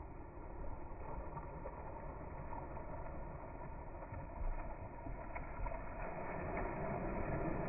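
Soft sea waves washing in, a steady rush of water that slowly swells louder towards the end.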